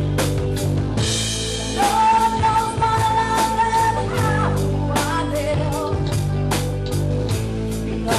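A band plays a song with a lead vocal over drum kit and guitar, the drums keeping a steady beat. A long note is held from about two to four seconds in.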